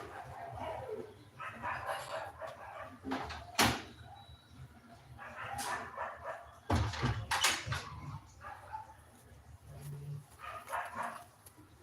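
Pigeon chicks being fed: repeated bursts of squeaky begging calls with a few sharp knocks, the loudest about a third of the way in and just past the middle.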